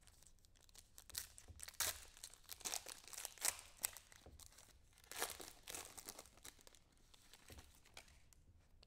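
The foil wrapper of a pack of football trading cards being torn open and peeled away, in a run of irregular sharp crinkles and crackles that thin out after about six seconds.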